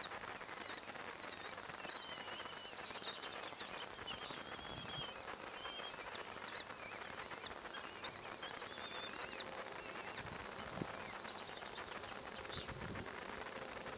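Kestrel chicks giving rapid runs of short, high-pitched begging calls while being fed, over a steady hiss. The calls start sharply about two seconds in and again about eight seconds in.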